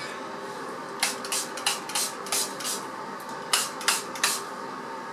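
Hand-pump spray bottle spritzing, about nine quick sprays in two groups of short hisses.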